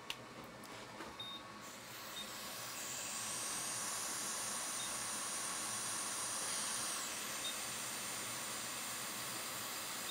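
Hot air rework station blowing on a burnt capacitor on a MacBook logic board to heat it for removal: a steady hiss of air that swells in about two seconds in, with a higher hiss that falls away about seven seconds in.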